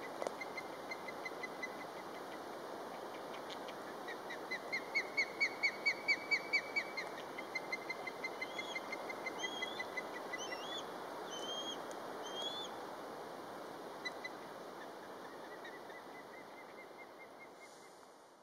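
Osprey calling: a run of clear, whistled chirps at about four a second, loudest about four to seven seconds in, followed by a few higher, rising whistles. A steady rush of the distant Metolius River runs underneath.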